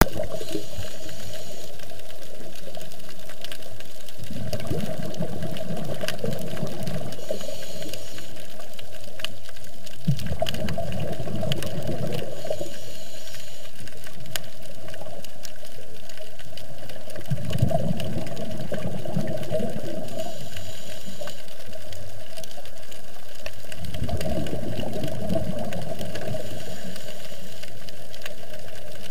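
Scuba diver breathing through a regulator underwater: a faint hissing inhale followed by a low bubbling exhale, repeating four times, about every six to seven seconds. Beneath it runs a steady underwater hiss with scattered sharp clicks.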